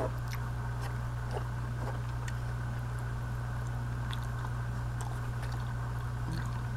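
Soft chewing of a mouthful of boudin sausage, with a few faint clicks of a wooden fork and knife against the plate, over a steady low hum.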